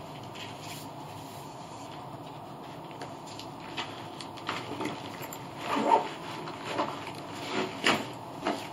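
Spirit box sweeping through radio stations: a steady hiss of static broken by short, choppy bursts of radio fragments, which come thicker from about halfway through.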